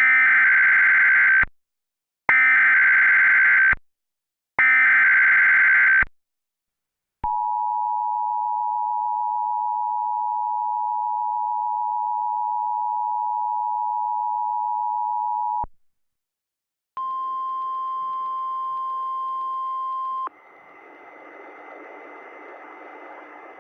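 Emergency Alert System test: three bursts of warbling SAME digital header data, then about eight seconds of the two-tone EAS attention signal. After a short gap comes a three-second single steady tone, the NOAA Weather Radio warning alarm, followed by a quieter hiss.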